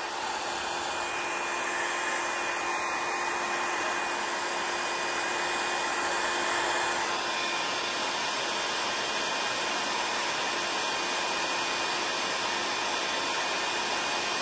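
Revlon 500-watt styling-brush hair dryer blowing steadily: an even rush of air with a constant motor whine.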